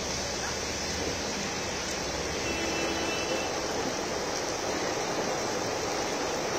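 Heavy rain pouring down steadily, an even wash of noise with no letup.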